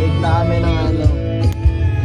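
Background music: a sung melody over guitar accompaniment.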